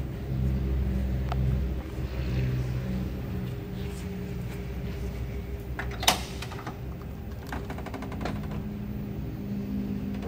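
The door latch of a 1956 Chevrolet pickup clicks sharply as the handle is pulled, about six seconds in. A quick run of light rattling ticks and a second click follow as the steel door swings open.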